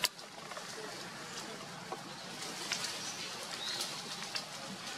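Outdoor ambience with a steady hiss and birds calling faintly in the background, with a few soft ticks. A single sharp click comes right at the start and is the loudest sound.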